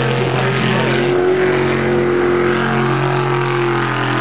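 Jet sprint boat's engine running hard at racing speed, a loud, steady engine note.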